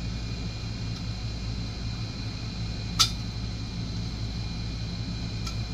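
A steady low mechanical hum, with one sharp click about three seconds in and a fainter click near the end.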